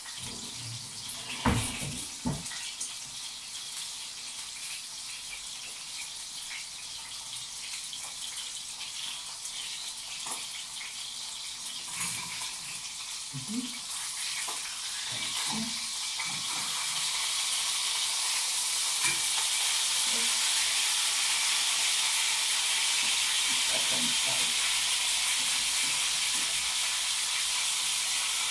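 Food sizzling in a frying pan on a gas stove: a steady hiss that swells louder about halfway through and then holds. A couple of sharp knocks of kitchenware come near the start.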